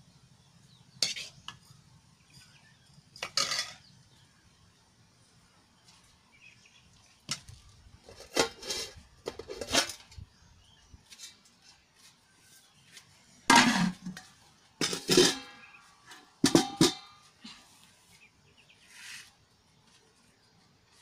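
Stainless steel plates, bowls and a ladle clinking and clattering against each other and a steel wok as food is served. The strikes come at irregular intervals, some ringing briefly, with the busiest and loudest stretch a little past the middle.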